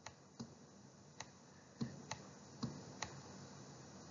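Faint, irregular clicks and taps of a stylus on a pen tablet while numbers are handwritten, about seven in four seconds.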